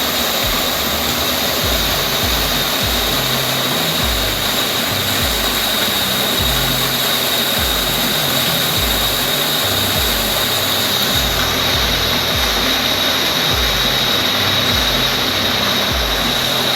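Waterfall rushing steadily, with a steady high-pitched whine held throughout. Music with a repeating bass line plays underneath.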